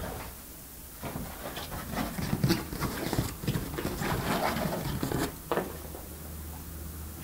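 Yorkshire terrier puppy moving about on a hard floor: a patter of small paws and scuffling, with one sharper knock about five and a half seconds in.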